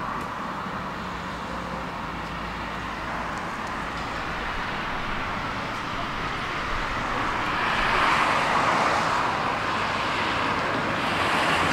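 City street traffic: road vehicles going by in a steady wash of noise that swells about eight seconds in and again near the end.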